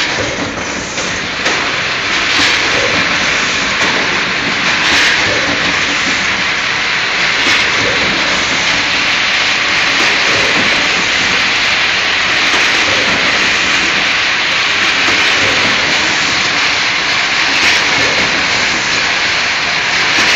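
Stand-up zipper pouch packing machine running: a loud, steady mechanical hiss with a sharp click now and then.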